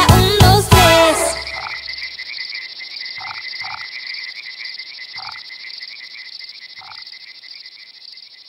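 A catchy children's dance song ends abruptly about a second in. A frog-chorus sound effect follows: a steady high trill with five short, deep single croaks, the whole fading out slowly.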